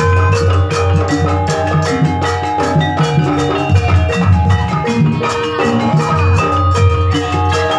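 Lively Javanese folk dance music: fast, even drumming under short ringing notes from tuned metal percussion.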